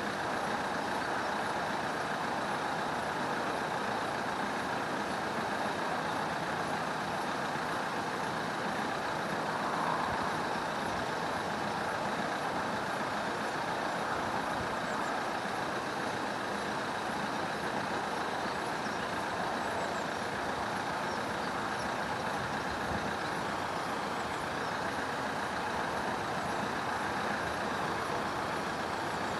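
Level crossing warning alarm sounding continuously, a steady high-pitched electronic warble that warns of an approaching train.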